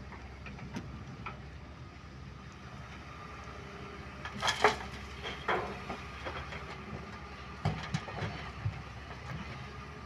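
Excavator's diesel engine running steadily at a low hum, with a cluster of sharp clanks and knocks about halfway through and several more near the end.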